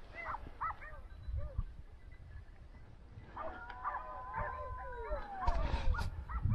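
Hunting dogs giving voice on the trail of wild boar: short yelping barks, then several long, overlapping howls from about three and a half seconds in, over a low rumble.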